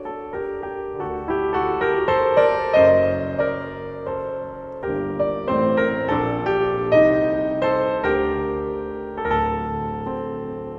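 Background piano music: soft notes and chords played at a gentle pace.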